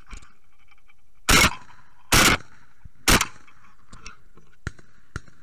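Shotgun fired three times in quick succession, about a second apart, while shooting at doves. A few much fainter sharp clicks follow.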